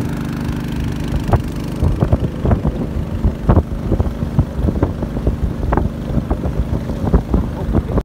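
Motor of a small narrow river boat running steadily under way. From about a second in, irregular thumps and buffeting ride over the engine hum.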